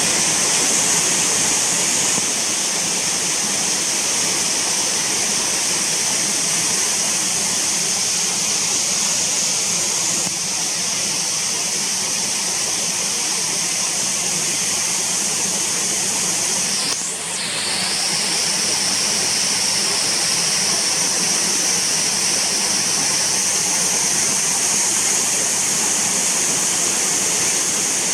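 Small mountain waterfall in heavy spate, a steady rushing of falling water with a strong hiss in the highs. The flow is running at unusual force, well above its normal thin trickle.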